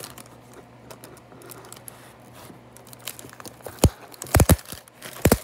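Thin plastic bag crinkling faintly as it is handled. Several loud, sharp clicks in the last second and a half.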